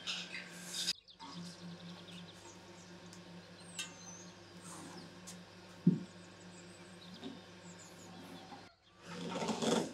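Glass bottles of pomegranate juice being rubbed dry with a cloth and set down on the table, with a single sharp knock about six seconds in and a rustle of cloth near the end. Birds chirp faintly in the background.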